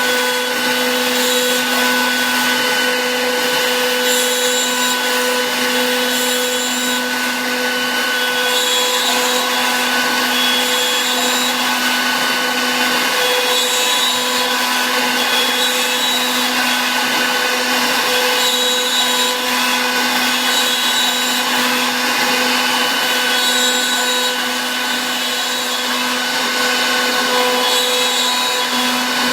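Spindle of a Suda ST-8070 CNC engraving-milling machine running at a steady, high whine while the cutter mills foamed PVC sheet, with a continuous cutting noise under it. Short high-pitched ticks recur every second or two.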